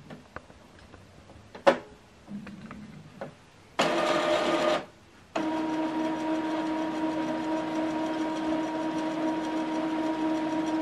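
Epson WorkForce WF-2910 inkjet printer running its ink-charging maintenance cycle after new cartridges were fitted: a few small clicks and one sharp click, a short motor run of about a second near the middle, then from about five seconds in a steady motor hum with a constant whine.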